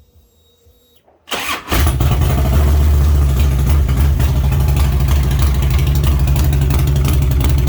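Near silence, then about a second in a motorcycle engine starts and settles into loud, steady running.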